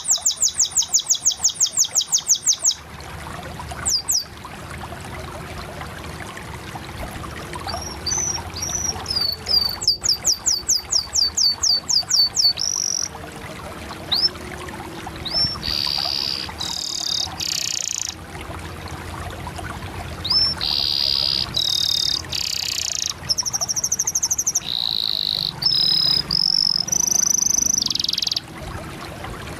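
Canary singing: phrases of fast repeated high notes, about ten a second, alternating with buzzy rolls and broken by short pauses.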